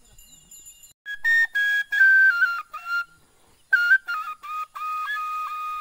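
Bamboo flute (bansuri) playing two short phrases of high, separate notes that step downward, starting about a second in; the second phrase settles on one long held note.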